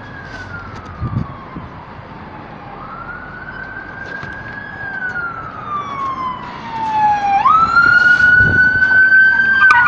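Police car siren on a slow wail, its pitch gliding down and back up over several seconds. It gets much louder from about seven seconds in as the car passes close by.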